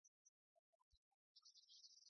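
Near silence, with only faint scattered ticks.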